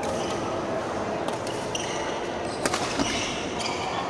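Badminton rally: a few sharp racket hits on the shuttlecock, two of them close together past the middle, with short high squeaks of shoes on the court floor.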